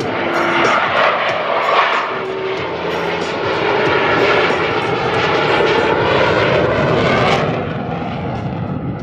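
USAF Thunderbirds F-16 jet engine running loud and steady as the jet climbs steeply nose-high. The rushing noise swells in the middle and eases off near the end.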